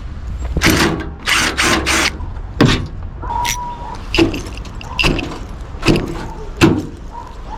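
Parts of a washing machine being handled and knocked about during dismantling: a run of sharp clunks and clatters, several close together about a second in, then single knocks about once a second, over a steady low hum.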